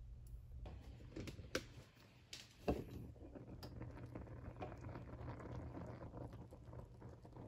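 Pot of mung beans at a rolling boil, bubbling and crackling in the open pot over a low steady hum. In the first few seconds there are a few light knocks and one sharp clink.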